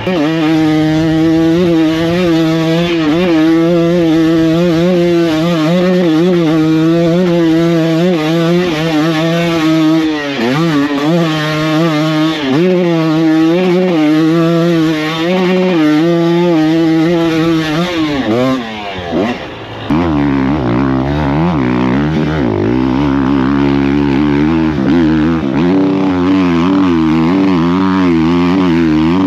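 KTM single-cylinder dirt bike engine pulling hard up a steep hill, its pitch rising and falling with the throttle. About nineteen seconds in it drops away briefly and a second KTM dirt bike takes over, running at a lower pitch.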